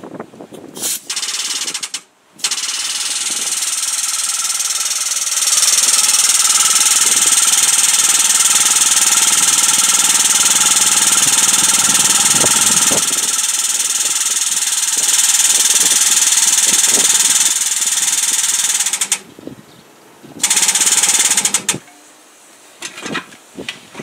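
Pneumatic-driven hydraulic jacks of a boat lift running on compressed air, a loud steady hiss and buzz of the air-driven pumps working as the boat is raised. It steps up in loudness about five seconds in, cuts out near the end, starts again briefly, then gives way to a few clicks.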